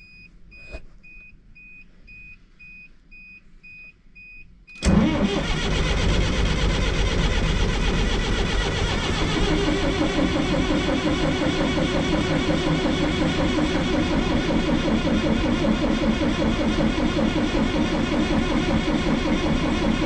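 Detroit Diesel Series 50 inline four-cylinder diesel engine on the starter, catching with a sudden loud onset about five seconds in and running on steadily. The mechanic puts the firing down to ether someone had sprayed into the engine, not to the fuel he is feeding it. Before it catches, a row of short, evenly spaced high beeps sounds.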